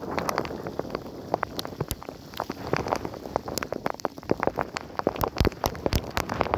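Wheels running over a wet, slushy road: a steady hiss of water spray with many sharp, irregular ticks, like spray and grit striking close to the microphone.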